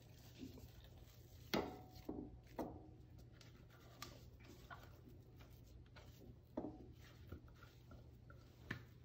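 A spatula scraping and knocking inside a plastic food processor bowl as thick blended chicken and chana dal paste is emptied into a glass bowl: a few faint, scattered knocks and scrapes.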